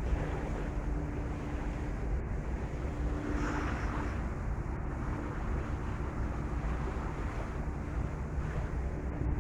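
Ferry engine running with a steady low rumble and hum, under wind buffeting the microphone and bay water washing past the hull; a brief louder rush of wind or water comes about three and a half seconds in.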